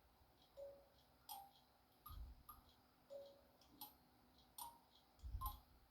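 Faint, irregular ticking and clicking from the animated Department 56 Ice & Snow Skating Pond running on its new motor, with two soft low thuds.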